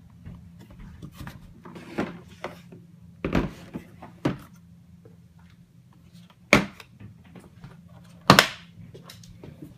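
Hard plastic socket-set carrying case being handled and turned over on a wooden floor: a string of knocks and thunks, the two loudest about six and a half and eight and a half seconds in.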